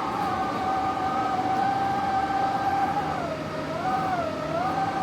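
Spot air conditioner's exhaust-heat fan running with a steady whistle made of a few held tones that dip and waver in pitch several times in the second half. This is the whistling suction noise that the owner traced to air being drawn in through the gap between the outlet elbow and the top cover.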